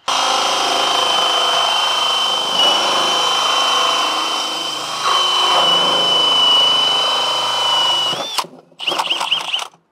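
Cordless drill spinning a hole saw through the plastic base of a switchboard enclosure, cutting a cable-entry hole: a steady high whine over cutting noise. It stops about eight seconds in, followed by a few short bursts.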